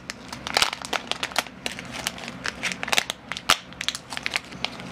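Clear plastic packaging of a paintbrush set crinkling and crackling as it is opened by hand, with many small irregular crackles and clicks.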